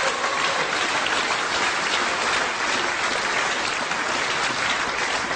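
Theatre audience applauding steadily, a dense even patter of many hands clapping in response to a punchline.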